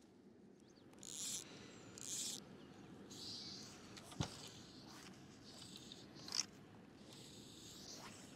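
Faint splashing of water as a rainbow trout is let go at the surface and swims off, with two short hissy splashes early and softer ones after. A sharp knock comes about halfway through, and another about two seconds later.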